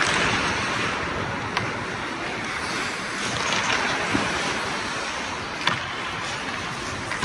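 Hockey skate blades scraping and carving across the ice as a steady hiss, with a few sharp clacks, the loudest about five and a half seconds in.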